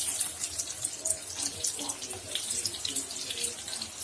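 Potato patties shallow-frying in hot oil in a pan: a steady sizzle full of quick crackles and pops.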